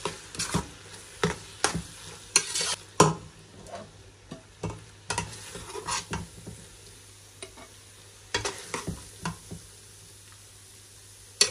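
Metal spoon stirring and scraping pasta with mince sauce in a large aluminium pot, with irregular clinks and scrapes against the pot's sides.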